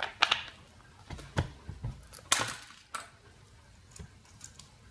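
Thin glass envelope of a small filament LED bulb being cracked and broken off with pliers: a string of sharp cracks and glassy clinks, the loudest about two seconds in, with fainter ticks of small pieces near the end.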